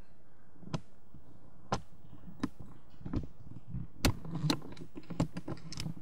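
A series of sharp, irregularly spaced clicks and knocks, about a dozen, coming closer together in the second half, with the loudest about four seconds in, over a faint steady hum.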